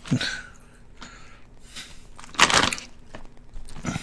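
Short crackles from a bag of Lay's Spicy Crayfish potato chips and the chips in it, with one near the start and a louder one about two and a half seconds in.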